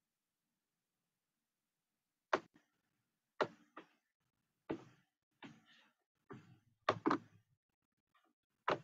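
A string of irregular knocks and thumps, about nine over six seconds, starting a couple of seconds in, each sharp at the start and dying away quickly.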